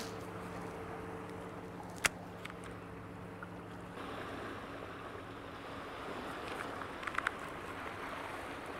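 Wind and small waves against a bass boat hull, under a faint steady hum from the boat's bow-mounted electric trolling motor; the hum shifts in pitch about halfway through. A single sharp click about two seconds in.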